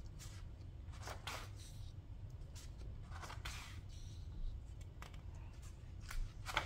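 Pages of a spiral-bound paperback book being turned and handled: a run of soft paper rustles and flicks, with the loudest page turns near the end.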